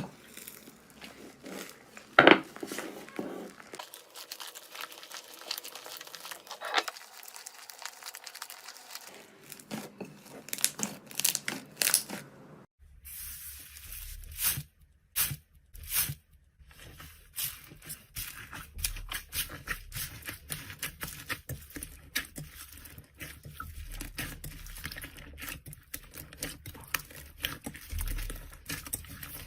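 Slime being squeezed, stretched and poked by hand, giving a string of small sharp clicks and pops. About halfway through the sound changes to a denser run of small clicks.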